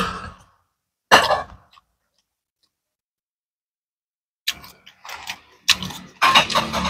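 A person eating close to the microphone: short irregular chewing and mouth noises, one about a second in, then several more after a silent stretch of a few seconds.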